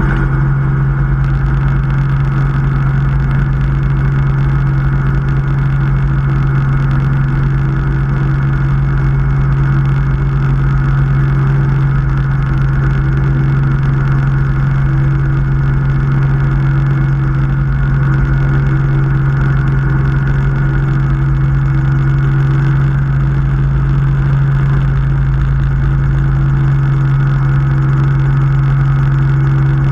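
Helicopter engine and main rotor running steadily at high power, heard close up from a camera mounted on the helicopter's fuselage, with a strong steady low hum and no letup, as the aircraft prepares to lift off and lifts off among other Robinson helicopters.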